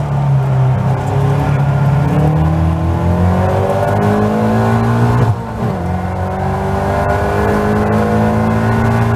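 Caterham Seven race car's four-cylinder engine at full throttle, heard from the cockpit, its pitch rising steadily as it accelerates out of a corner. About five seconds in it drops suddenly for an upshift, then climbs again.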